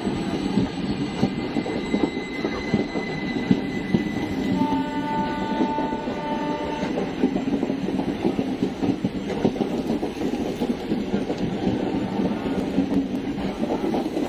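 A train passing close by, its wheels and coaches rattling and clattering steadily over the rails. About four and a half seconds in, a train horn sounds for about two seconds with a brief break.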